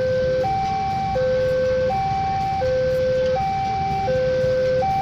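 Railway level-crossing warning alarm sounding two alternating tones, a higher one and a lower one, each held for about two-thirds of a second and repeating steadily.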